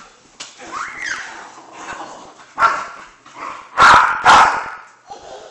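Large dog barking in several short barks, the two loudest coming close together about four seconds in.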